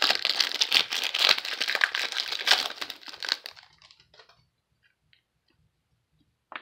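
Trading-card pack's foil wrapper crinkling and tearing as it is pulled open by hand, a dense crackle that dies away after about three and a half seconds.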